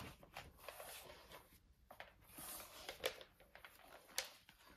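Leather bootlaces being pulled and drawn through the metal eyelets of a boot: faint rustling and scraping with a few light ticks.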